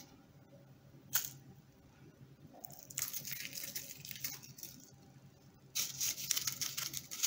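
Fingers rustling and scratching through dry grated coconut in a plastic bowl, in two spells of soft, crackly rustling, with a single click about a second in.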